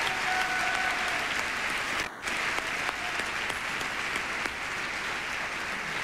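Large theatre audience applauding, a steady dense clapping with a momentary dip about two seconds in.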